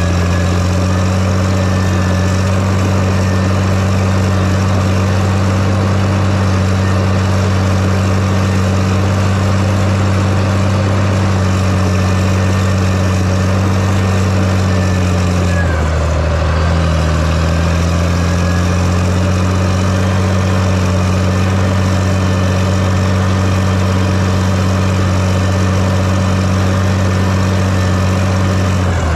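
Heavy diesel engine running at a steady speed, its note shifting briefly about halfway through before settling again.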